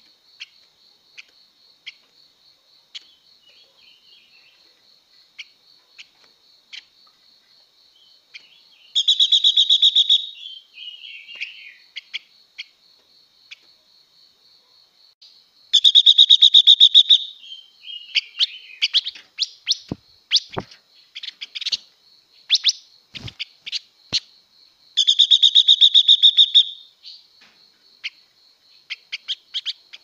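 Silver-eared mesia calling: three loud, very rapid trills of about a second and a half each, coming roughly 9, 16 and 25 seconds in, with short scattered chirps between them. A faint steady pulsing high tone runs underneath.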